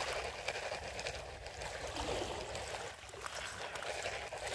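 Shallow seawater lapping and trickling, a steady wash of moving water.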